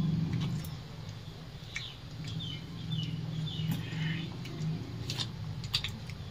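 People eating rice and curry with their fingers from steel plates: scattered light clicks and handling noises. Small birds chirp in the background over a low steady hum.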